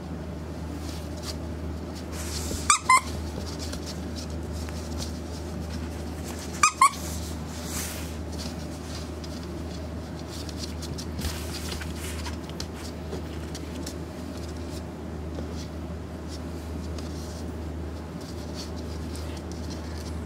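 A Pembroke Welsh Corgi puppy, about three and a half weeks old, giving two short bouts of high-pitched squealing cries, each a quick pair of squeals, about three and seven seconds in: the distress cries of a young pup that wants to go back to its mother. A steady low hum runs underneath.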